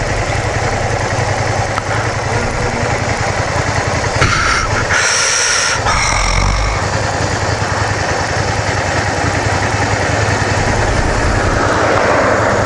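Honda VTR250's V-twin engine running steadily as the motorcycle rides along, with road and wind noise. A brief shrill sound cuts in about four seconds in and lasts under two seconds.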